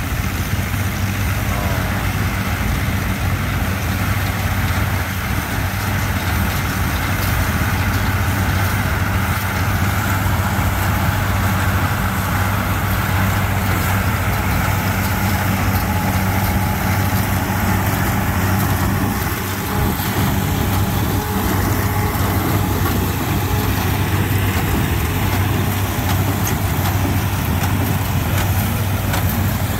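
Allis-Chalmers tractor engine running steadily under load, pulling a small square baler that is picking up and baling straw from a windrow.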